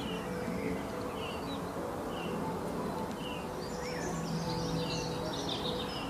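Birds chirping: short high notes about once a second, with a busier spell of twittering in the middle, over a steady background hiss with a faint low hum.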